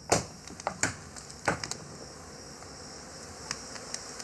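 A handful of sharp knocks in the first two seconds, from wooden stakes being worked into a tree trunk during a climb, over a steady high chirring of night insects.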